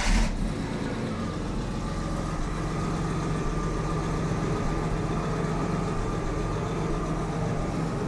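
Jaguar XJ6 Series 3's 4.2-litre fuel-injected straight-six, just fired up, flaring briefly and then idling steadily. It is running on a replacement ignition coil fitted to chase its rough idle and misfire.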